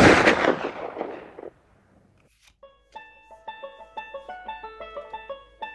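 A loud burst of noise at the start that dies away over about a second and a half. After a short quiet gap, light background music with plinking, keyboard-like notes begins about two and a half seconds in.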